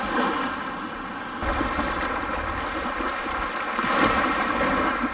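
Small ocean waves breaking and washing up a sandy beach, with wind rumbling on the microphone from about a second and a half in. The surf swells louder about four seconds in.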